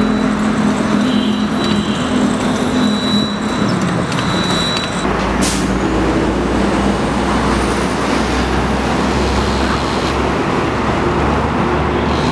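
Steady street traffic noise: vehicle engines and road noise. The low hum changes about five seconds in.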